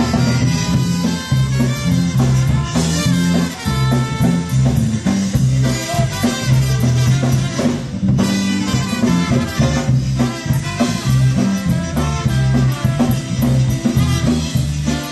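Live dance band playing an instrumental passage with no singing: a drum kit keeping a steady beat under a prominent bass line and lead instruments.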